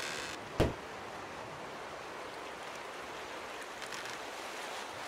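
Steady ocean-surf and wind ambience, with a single loud thump about half a second in.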